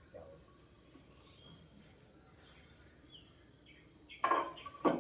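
Faint bird chirps over a steady high insect drone. About four seconds in come two loud clinks and clatters of dishes and cutlery, the first with a short ringing tone.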